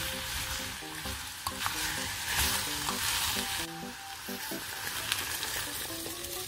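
Diced radish, onion and zucchini sizzling as they are stir-fried in an earthenware pot and stirred with a wooden spoon. A little past halfway the sound changes as water is poured into the pot. Quiet background music plays underneath.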